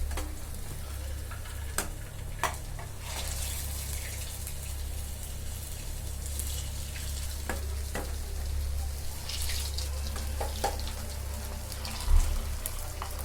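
Urad dal vadas deep-frying in hot oil, with a steady sizzle and a low hum underneath. A few sharp clicks are heard, and there is a louder knock near the end.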